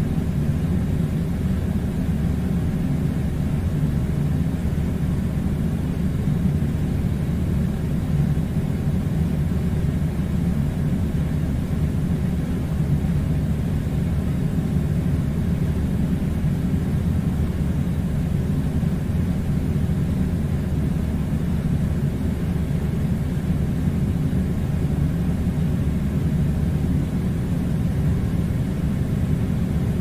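Air conditioner running: a steady low rumble that does not change.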